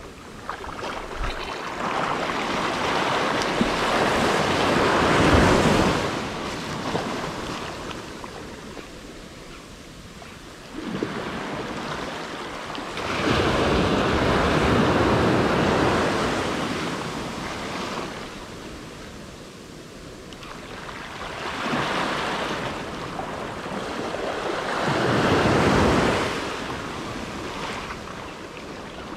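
Small waves washing up on a sandy beach: three surges, each building up and then fading away.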